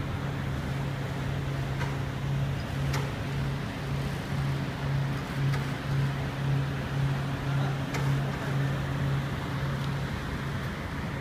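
Steady low hum of workshop machinery that pulses about twice a second over a broad hiss, with a few faint clicks.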